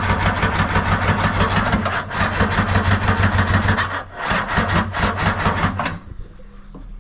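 Jet boat engine running loudly with a fast, rasping firing rhythm, faltering twice and then cutting out about six seconds in, which the owner fears is the engine locking up.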